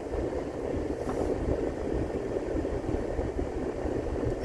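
Steady road and engine noise of a car being driven, heard from inside the cabin.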